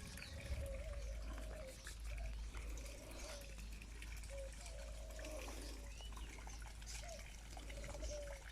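A bird calling over and over: short, low notes with a slight rise and fall, about one a second, over a faint steady low rumble.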